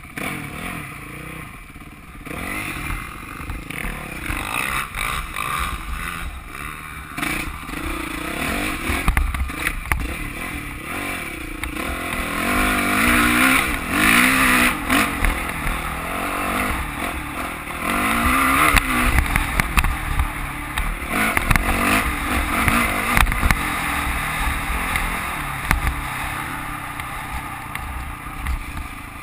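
Dirt bike engine revving up and falling off again and again while being ridden hard over rough dirt, heard close from the bike itself. It is loudest about halfway through, as the bike climbs a steep hill.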